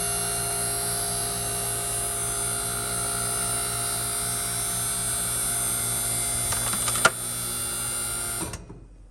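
Orwak 5040 hydraulic compactor's electric motor and hydraulic pump running steadily, a hum with several high whining tones. A sharp click comes about seven seconds in, and the motor shuts off abruptly about a second later.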